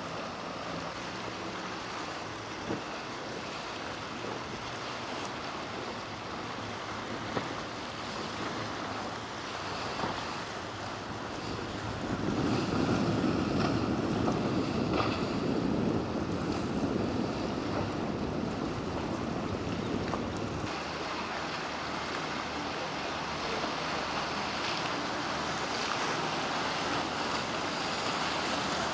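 Surf and wind rushing on the microphone, with a motorboat running through the waves. The rush swells louder for about eight seconds in the middle, then drops off suddenly.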